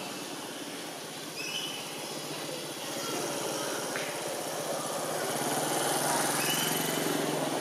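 A small engine running steadily in the background, getting louder about three seconds in, with a few short high chirps over it.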